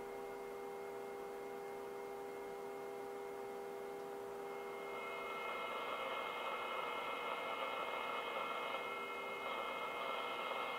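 A radio's speaker sounding a steady 400 Hz test tone demodulated from a signal generator's modulated carrier. About five seconds in, as the loop antenna is adjusted, the tone turns a little louder and takes on a higher, buzzier sound, and the radio's output frequency shifts upward.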